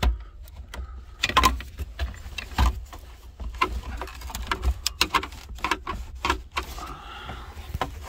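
Repeated plastic clicks and rattles from a wiring connector on a Dodge Caravan's HVAC control head as its release trigger is pressed and the plug is wiggled, with dull knocks among them. The plug is stiff and resists coming out.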